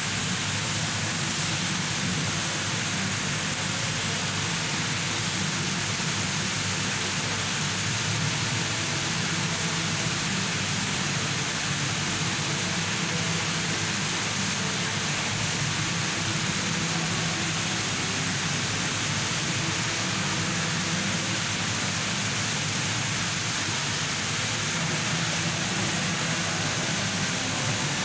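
Steady rushing background noise with a low hum underneath, unchanging throughout, like running water.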